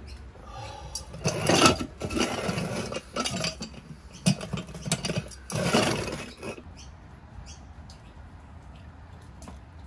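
Metal clinks, rattles and scrapes from caravan jacking gear being worked: a bottle jack and a yellow jack stand with its locking pin and chain. Two louder clattering bursts about a second and a half in and near six seconds, then only faint ticks.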